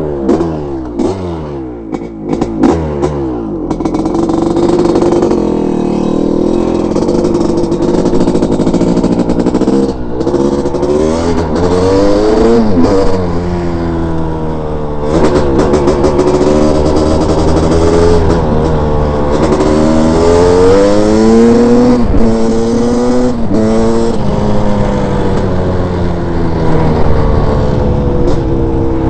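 Honda CR500 two-stroke single-cylinder dirt bike engine under way, revving up and easing off over and over, its pitch climbing through the gears and dropping back.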